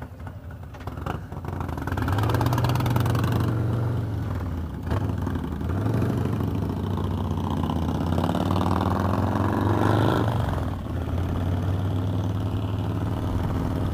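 Harley-Davidson Road Glide's Milwaukee-Eight 107 V-twin through an aftermarket TBR exhaust, pulling away from a stop. The engine picks up about two seconds in, its revs rise steadily through a gear from about six seconds, drop at a shift near ten seconds, and then it cruises steadily.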